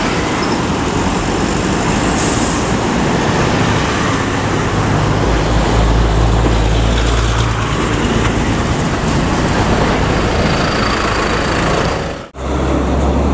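Road traffic passing close by, led by a heavy diesel intercity bus whose low engine rumble swells about five seconds in and fades a couple of seconds later. The sound cuts out abruptly for a moment near the end.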